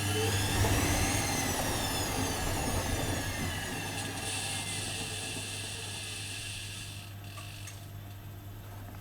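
Privileg Dynamic 4612 washing machine's drum motor whining up for about a second, then winding down over the next few seconds as the drum slows. A steady hum fades along with it.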